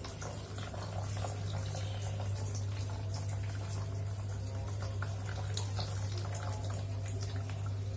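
Water sloshing and splashing lightly as a small fish net is worked through a plastic bucket of water, over a steady low hum.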